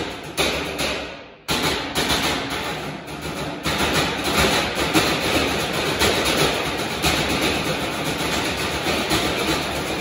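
Galvanized metal trash cans played as percussion by a quartet with sticks: a few separate ringing hits at the start, then a dense, continuous metallic clatter of fast strokes from about a third of the way in.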